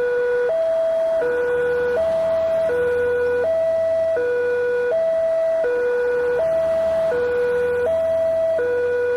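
Railway level-crossing warning siren sounding a steady two-tone alarm, switching back and forth between a lower and a higher tone about every three-quarters of a second. It signals that a train is approaching and the crossing gate is closing.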